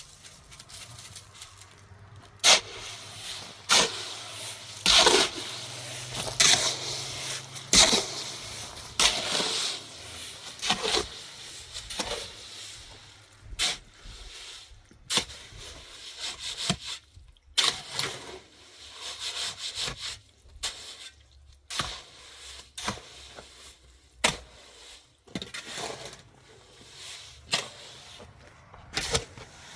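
Irregular scraping and rubbing of hand work with tools, broken by sharp knocks every second or two.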